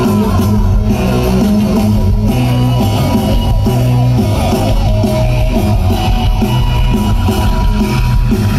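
Live rock band playing loudly: an electric guitar lead with bending notes over bass guitar and drums, heard from the audience.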